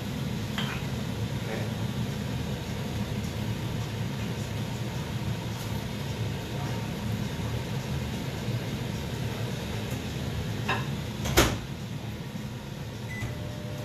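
Gas burner flame running under an upturned wok, making a steady low rumble. A sharp knock comes about eleven seconds in.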